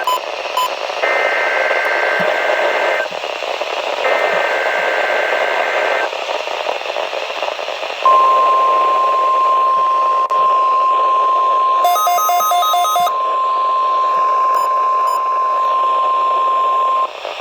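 NOAA Weather Radio weekly test signals heard over a radio receiver with steady static hiss. Two raspy, warbling SAME digital header bursts of about two seconds each are followed, after a short pause, by the steady 1050 Hz weather alert tone held for about nine seconds. About twelve seconds in, a short run of rapid beeps cuts across the tone.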